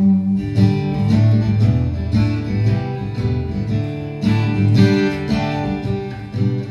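Acoustic guitar strummed on its own in a steady rhythm: an instrumental passage of a folk song, with no singing.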